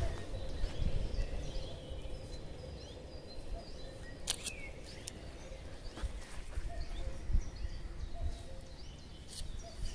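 Outdoor ambience: wind rumbling on the microphone, with small birds chirping here and there. Two sharp clicks stand out, one about four seconds in and one near the end.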